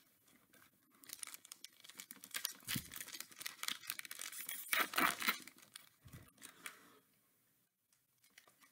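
Donruss trading-card pack wrapper being torn open and crinkled by hand: a run of crackling tears and rustles that starts about a second in, is loudest around the middle, and stops about seven seconds in.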